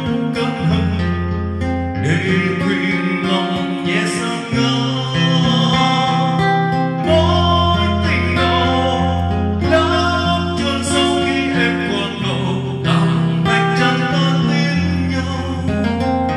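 Music: a song with guitar and singing over a deep bass line.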